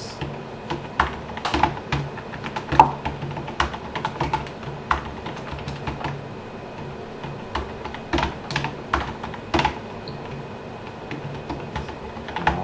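Typing on a computer keyboard: irregular key clicks in short runs with brief pauses.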